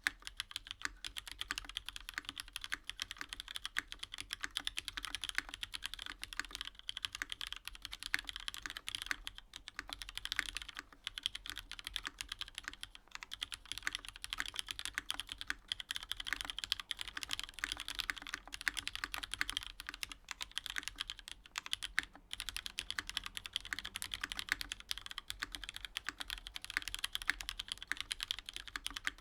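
Steady, fast typing on a Kage TKL mechanical keyboard: lubed vintage Cherry MX Black linear switches bottoming out on an aluminium plate in a top-mounted polycarbonate case with no foam, under GMK keycaps, with brief pauses between bursts.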